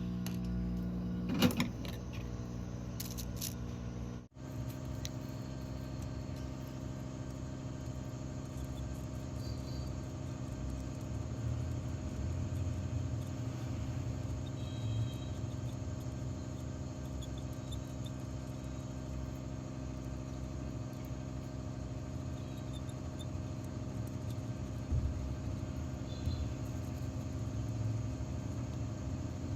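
Steady hum of a small motor or fan, with a few sharp clicks in the first three seconds and a brief break about four seconds in.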